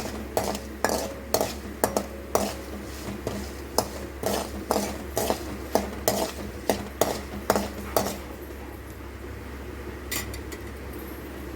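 A metal spoon clinking and scraping against a pan while stirring tempering seeds and dals frying in a little oil, in repeated strokes about two a second, dying down about eight seconds in.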